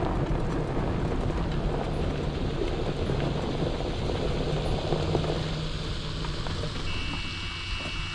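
Steady low rumble and wind noise of a slow-moving vehicle, with a low hum that fades about five seconds in; a few thin high steady tones come in near the end.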